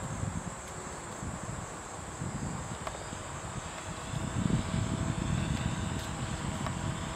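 Brushless electric motor and pusher propeller of a foam RC fighter plane giving a faint, steady whine as it flies at a distance, under gusty wind noise on the microphone.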